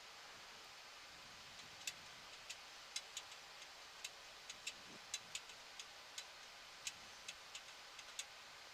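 Faint steady hiss of cockpit background noise, broken by about twenty short, sharp clicks at irregular intervals, starting about two seconds in and stopping shortly before the end.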